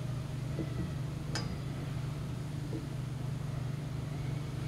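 Steady low machine hum with a single sharp click about a second and a half in.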